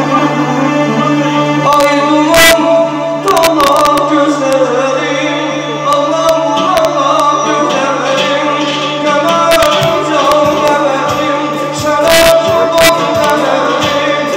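A man singing live into a microphone, with long held notes, over electronic keyboard accompaniment and sharp percussion hits, played through PA loudspeakers.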